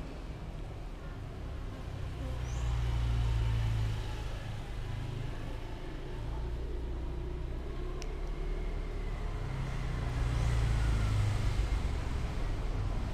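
Low, steady rumble of road traffic that swells twice as vehicles pass, with one engine rising in pitch near the end and a single sharp click about eight seconds in.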